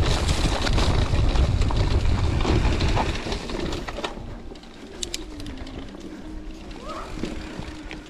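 Mountain bike rolling down a rough dirt and grass singletrack, with wind buffeting the camera microphone and tyres and brush rustling, loud for the first four seconds. It then turns quieter, leaving a faint steady hum with a few short clicks.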